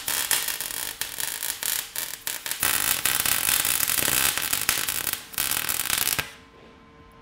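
MIG (wire-feed) welder arc crackling and sizzling as a bead is laid on steel. It goes in runs with brief pauses, and stops about six seconds in, leaving a faint steady hum.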